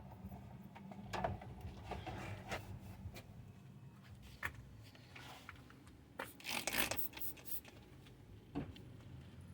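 Hand work on parts: scattered clicks and knocks, with a longer stretch of rubbing and scraping about six to seven and a half seconds in, over a steady low hum.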